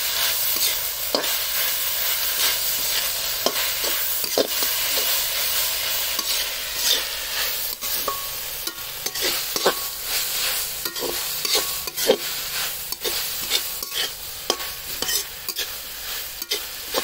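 Shredded vegetables stir-frying in a steel kadai: a steady sizzle, with a metal spatula scraping and clicking against the pan again and again as they are tossed. The sizzle eases a little in the second half.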